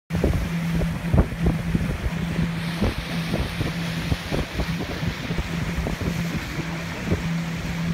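Motorboat under way: the motor hums steadily, with wind buffeting the microphone and irregular thumps of water against the hull.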